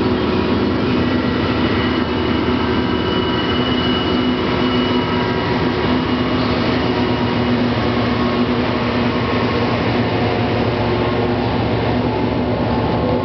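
Rear diesel-electric helper locomotives of a freight train passing close by: a loud, steady engine drone with a few held tones over the rumble of the rails. The sound stays just as loud as the locomotives pull away.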